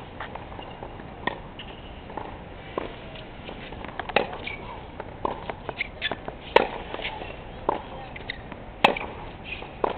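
Tennis rally on a hard court: sharp pops of the ball being struck by rackets and bouncing, at irregular intervals of about half a second to a second, a few much louder than the rest.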